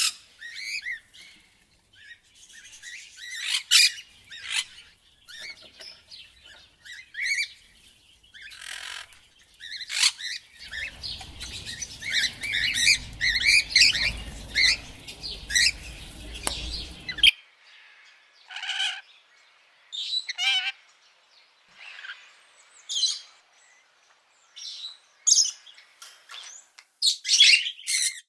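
Parrot calling: a long run of short, sharp squawks and chirps with gaps between them. For several seconds in the middle a low rumbling noise sits under the calls, stopping abruptly.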